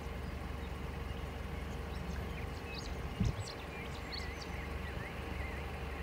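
Small birds chirping and twittering, more busily in the second half, over a steady low rumble, with one dull thump a little after three seconds.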